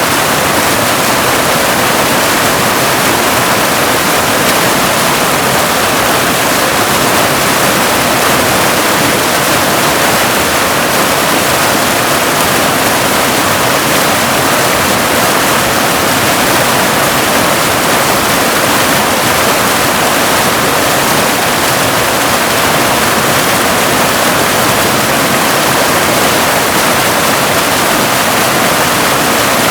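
Waterfall rushing steadily: an unbroken, even wash of falling water, mostly hiss with little deep rumble.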